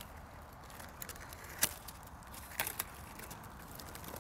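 Faint scattered clicks and crackles of dry grass and stems being brushed while moving through a meadow, the sharpest about a second and a half in, over a low steady rumble.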